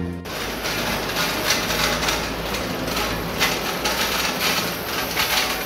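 Street noise in a town centre: a steady low engine hum under an even wash of noise, with a few scattered knocks and clatter.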